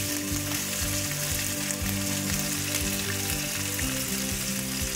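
Hilsa fish steaks sizzling steadily as they fry in smoking-hot mustard oil in a stainless steel pan, the moisture of the fish spitting in the oil. Quiet background music plays underneath.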